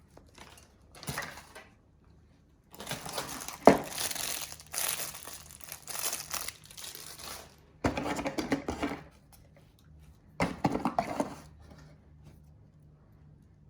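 Packaging being unwrapped and handled, crinkling and rustling in several spells of a few seconds each, with a sharp knock about three and a half seconds in.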